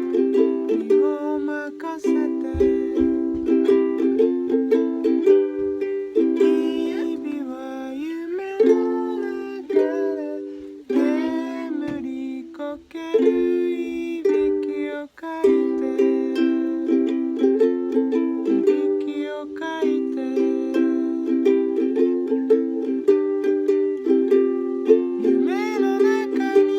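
Ukulele music: chords strummed steadily, with a few sliding notes now and then.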